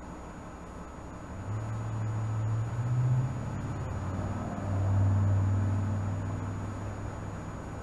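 Diesel engine of a Nova Bus LFS city bus pulling under load, heard from inside the bus. A low drone builds about a second and a half in and steps up in pitch. It then drops back lower and swells to its loudest before easing off near the end.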